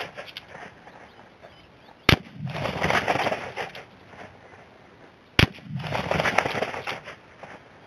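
.375 Ruger rifle fired twice about three seconds apart: each is a sharp crack followed by about a second and a half of noisy tail. Each shot bursts a water-filled plastic bottle.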